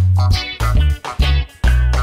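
Background music with bass guitar and guitar over a steady beat.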